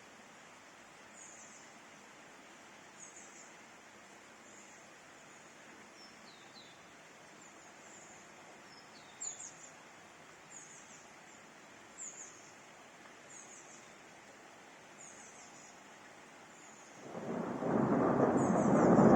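Steady hiss of rain with a bird chirping every second or two. About seventeen seconds in, thunder breaks in with a loud rumble that keeps building.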